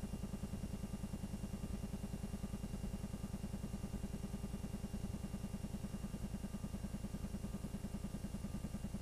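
Film projector running: a steady mechanical whirr with a fast, even pulse of about eight beats a second.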